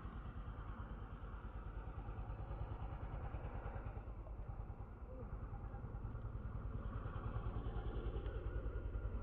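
An engine running steadily at low revs, a low rumble with a fast, even pulse.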